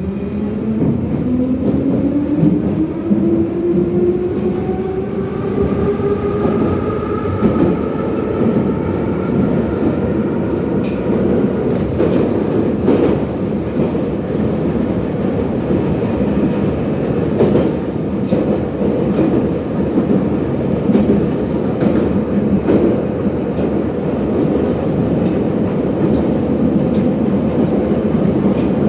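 81-717 'nomernoy' metro train accelerating out of a station: the traction motor whine rises in pitch over the first several seconds and levels off. The train then runs at speed with a steady rumble and occasional sharp clacks of wheels over rail joints.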